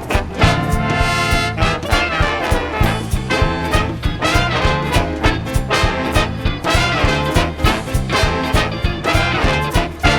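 A big band playing swing live, with trombones and trumpets carrying the lines over a steady beat.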